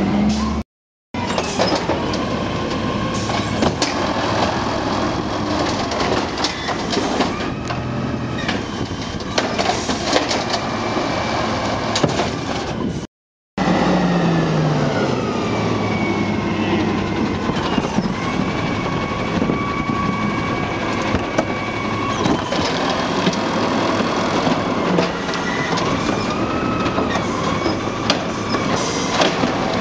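Natural-gas Autocar ACX garbage truck with an Amrep automated side-loader arm at work: engine running, hydraulics whining up and down in pitch as the arm lifts a recycling cart, with frequent clanks and knocks from the cart and arm. The sound drops out twice, briefly, about a second in and about thirteen seconds in.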